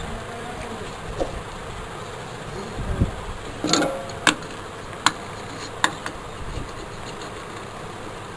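A steady low electrical hum, with four or five sharp clicks and taps from about halfway in as a soldering iron is handled against the plastic casing of the digital scale.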